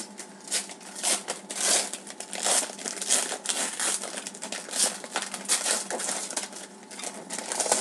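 Foil wrapper of a Panini Zenith hockey card jumbo pack crinkling as it is handled and opened by hand, in an uneven run of sharp crackles.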